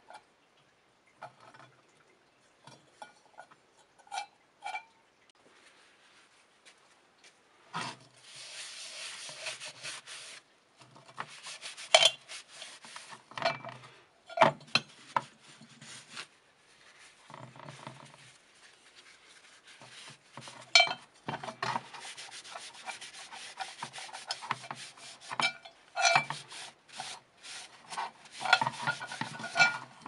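Paper towel wet with isopropyl alcohol rubbing over a wire-brushed steel cowbell in spurts of wiping, a second or two at a time, with sharp clinks as the bell is handled. For the first several seconds there are only a few scattered light clinks.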